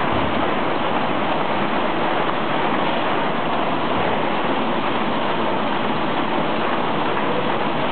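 Muller Martini 3215 Ventura book-sewing machine running, a steady, even mechanical noise with no pauses.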